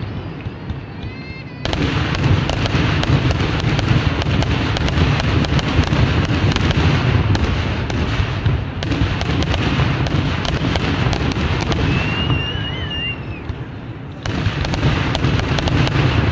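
Fireworks display going off: dense, rapid crackling and popping over continuous low booms. It gets suddenly louder about two seconds in and eases somewhat near the end.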